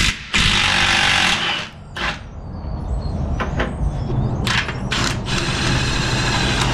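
Cordless impact wrench hammering on a steering rack mounting bolt: a burst of about a second, several short bursts, then running steadily near the end as the loosened bolt spins out.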